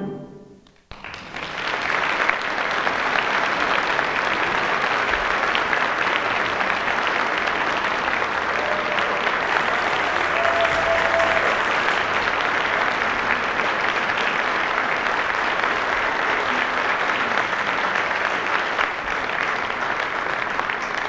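A concert band's last chord dies away, then an audience applauds steadily, the clapping easing slightly near the end.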